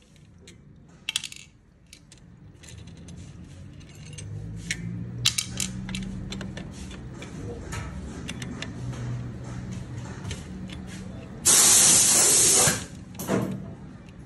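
Socket wrench clicking and metal clinking on the clutch pressure-plate spring bolts of a Pulsar 200 NS. A loud hiss lasting just over a second comes about eleven seconds in.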